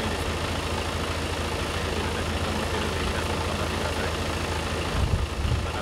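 Large bus's diesel engine idling steadily, a low rumble.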